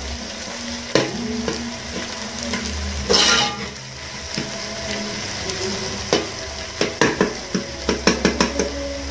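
Onions and ginger-garlic paste frying with a steady sizzle in a metal pot while a metal spoon stirs them, scraping and clinking against the pot. A quick run of spoon knocks comes in the last third.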